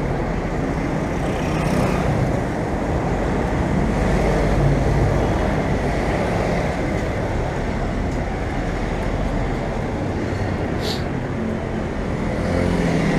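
Steady road traffic noise from cars, vans and motorbikes passing on a busy city street, with a short high-pitched sound about eleven seconds in.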